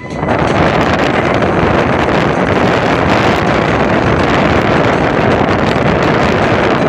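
Strong wind blowing across the microphone: a loud, steady rush of noise.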